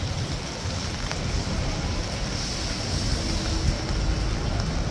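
Steady rushing noise with a heavy low rumble: wind buffeting the microphone over the ambience of a wet city street.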